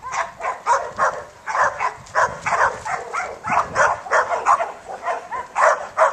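Dog barking rapidly and repeatedly, about three barks a second without a break.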